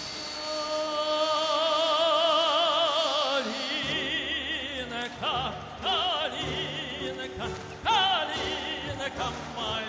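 Operatic singing over instrumental accompaniment: a high voice with wide vibrato holds a long note, then breaks into shorter phrases about four seconds in.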